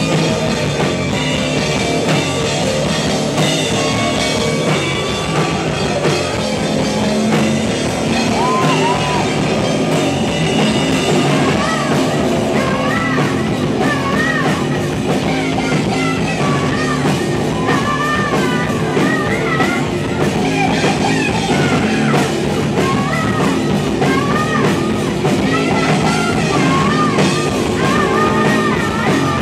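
Rock band playing live: electric bass, guitar and drum kit, with a singer's voice coming in about eight seconds in and carrying on over the band.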